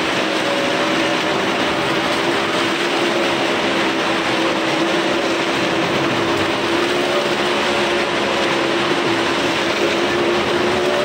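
Engines of several motorcycles and small cars circling the vertical wooden wall of a wall-of-death drum, running together at steady high revs as one continuous drone with a held note.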